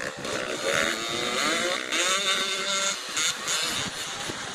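Youth dirt bike engines revving hard, rising in pitch in two surges as the riders accelerate away.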